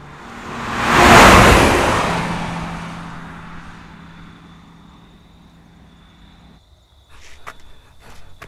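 A car passing by: its noise swells to a peak about a second in, then fades slowly as it drives off, with a steady engine hum that cuts off suddenly. Near the end come a few footsteps on a gravel road.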